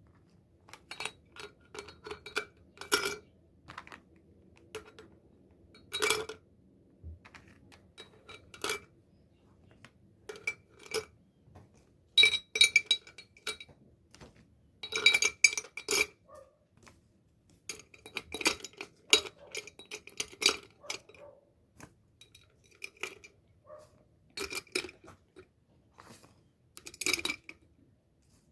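Packaging being handled and tapped: irregular bursts of crinkles, taps and light clinks with a brief ring, coming in clusters with short pauses between.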